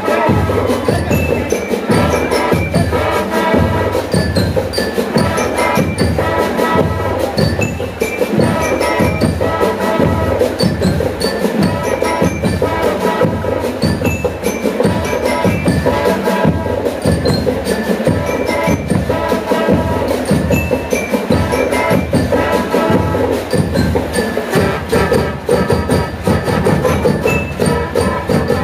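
A school marching band playing: trumpets, trombones and sousaphones over a steady beat of marching drums, with bright high notes above.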